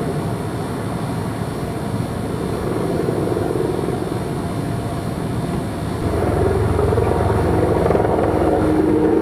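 Engine noise running steadily, growing louder about six seconds in, with a strong low rumble and a steady hum.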